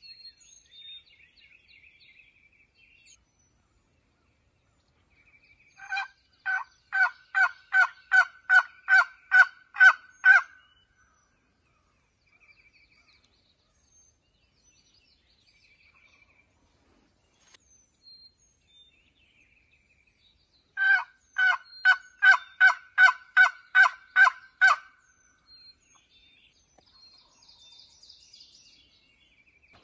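Wild turkey yelping in two long runs of about a dozen evenly spaced notes each, the first about six seconds in and the second about fifteen seconds later. Faint songbird song fills the gaps between them.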